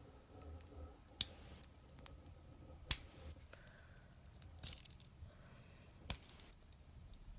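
Pocket multitool implements being pulled out one after another: three sharp clicks as tools snap into the open position, with a short scraping rustle about halfway through.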